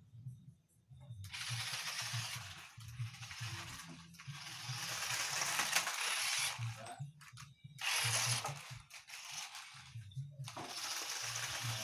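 Small electric motor and plastic gearbox of a 1:18-scale toy RC car whirring, starting and stopping in several bursts of a few seconds each.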